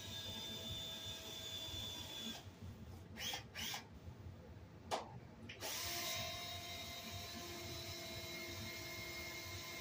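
Power drill running steadily, stopping for about three seconds with a few sharp clicks and knocks, then spinning up and running steadily again.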